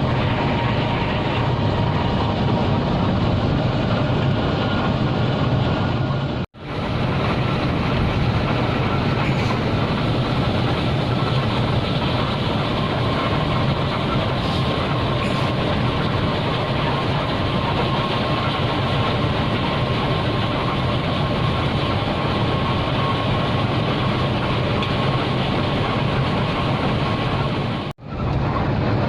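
Steady road and engine noise of a moving bus, broken by two sudden, brief dropouts about six seconds in and near the end.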